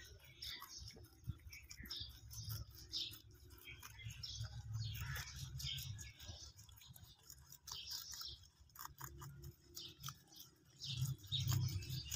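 A crowd of domestic rabbits munching and rustling through cut grass, with a steady run of small crisp clicks, while small birds chirp in the background. A low rumble grows louder near the end.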